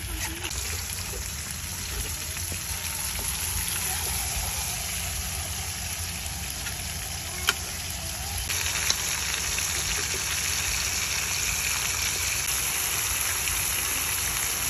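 Whole chicken cooking in its juices in a metal wok, the liquid sizzling steadily while a metal ladle scoops and pours it over the chicken. The ladle clinks once against the wok about halfway through, and the sizzling gets louder a little after that.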